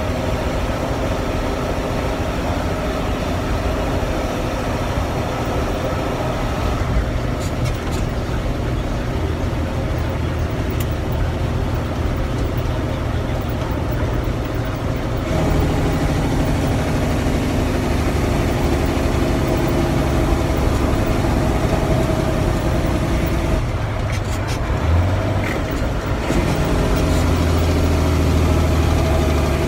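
Cummins diesel engine of a 1998 International 9400 truck heard from inside the cab as the truck is driven and shifted through its 10-speed Spicer gearbox. The engine note changes and steps up in loudness about halfway through and again near the end, with a single click in between.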